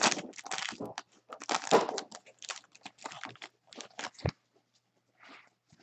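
Foil trading-card pack wrapper being torn open and crinkled by hand, a run of irregular crackling rustles that are busiest in the first two seconds and thin out after. A single low knock about four seconds in.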